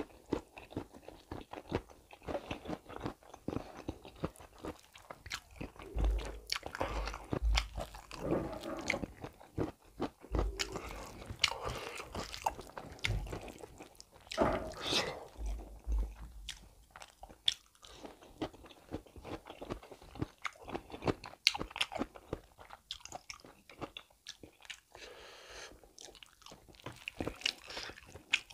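Close-miked chewing and wet mouth sounds of beef curry and rice eaten by hand: an irregular run of smacks and clicks.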